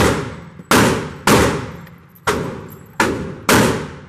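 Six gunshots from other shooters on the range, irregularly spaced about half a second to a second apart, each with a long echoing tail.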